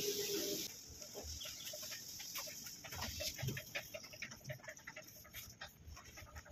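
A steady mechanical hum with hiss, which cuts off abruptly under a second in. After it come faint scattered clicks and short, repeated animal calls.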